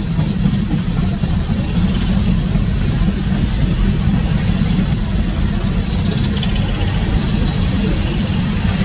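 Coal gondola cars of a long freight train rolling past, their steel wheels on the rails making a steady, loud low rumble.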